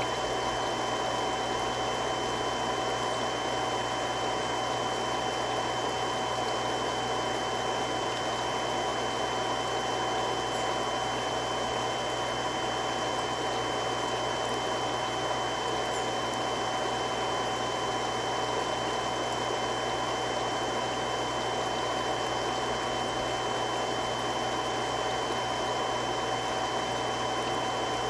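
Three-stage irrigation water pump running steadily: an even rushing noise with a few constant whining tones over it.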